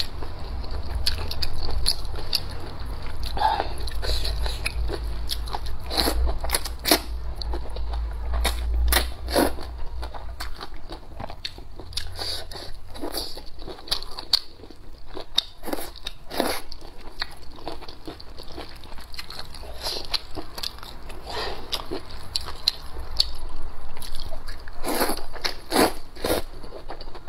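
Close-miked chewing and crunching of braised chicken offal and noodles, a steady run of short, sharp wet mouth clicks and crunches. A low rumble sits under the first third or so.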